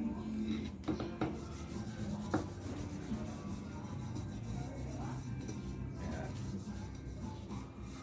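Wood stain being rubbed onto a wooden box, a steady scuffing with a few light knocks in the first few seconds.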